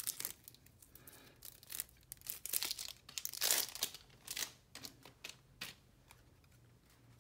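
Plastic shrink-wrap being torn and peeled off a deck of trading cards, crinkling in irregular bursts, loudest about halfway through and dying away near the end.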